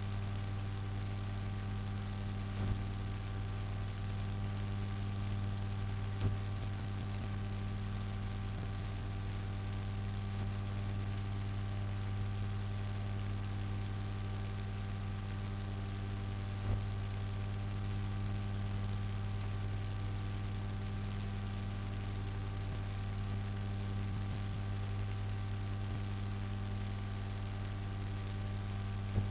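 Steady electrical mains hum, low-pitched with higher overtones, over a faint hiss, with a few soft clicks scattered through it.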